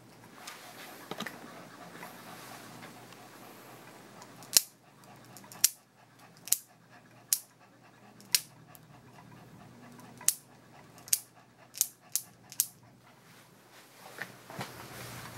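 Dog nail clippers snapping through a small dog's overgrown nails: about ten sharp clips, starting about four seconds in. Before the clipping, the dog panting.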